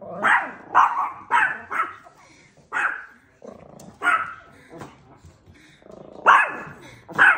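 Small chihuahua-type dogs barking in sharp, high-pitched yaps: a quick run of four, then single barks spaced about a second or more apart. This is alert barking at strangers.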